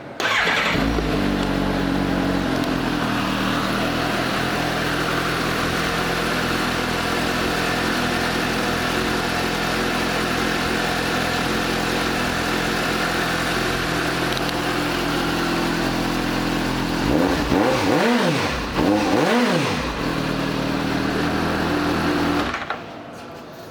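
2015 Suzuki GSX-S750's inline-four engine starting, then idling steadily. Near the end the throttle is blipped twice, the pitch rising and falling each time, and the engine is switched off and cuts out suddenly.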